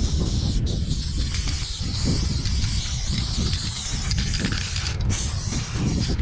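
Aerosol spray paint can hissing as black paint is sprayed in long continuous bursts, the hiss briefly cutting off twice when the nozzle is released. A rough low rumble runs underneath.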